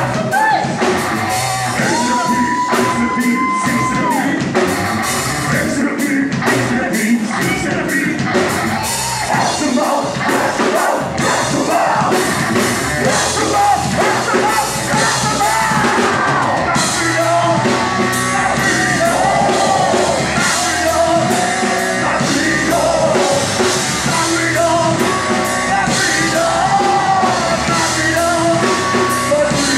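Loud live horror-punk/metal band playing: drum kit, guitars and yelled, sung vocals, heard from among the audience in a club.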